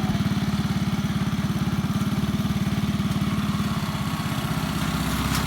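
An engine idling steadily with a fast, even chugging.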